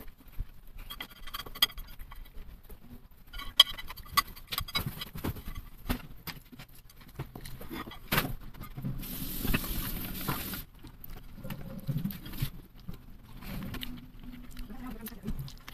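Chopsticks tapping and scraping on a plate as fried rice is gathered up and eaten, mixed with close chewing sounds. Near the middle a steadier scraping runs for about two seconds.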